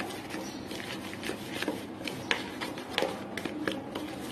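Steel spoon stirring a thick spice marinade paste in a plastic bowl, giving irregular scrapes and soft clicks against the bowl.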